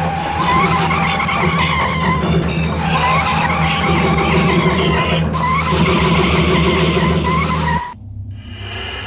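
Car tyres screeching and skidding again and again over a steady low engine rumble, as a film sound effect. It cuts off abruptly about eight seconds in, and a quieter steady hum takes over.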